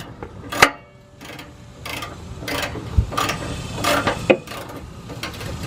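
Ratchet wrench on an extension clicking as it works the 15 mm muffler bolts, with several sharp metal clanks of tools against the exhaust.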